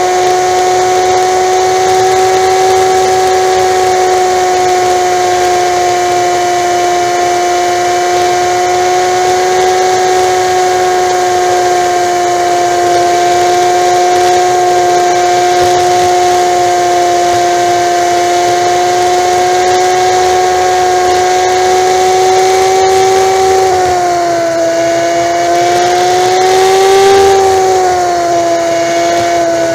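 Honda Magna V4 motorcycle engine running at a steady highway cruise, with road and wind noise; its note drops slightly near the end, rises for a moment and settles lower again.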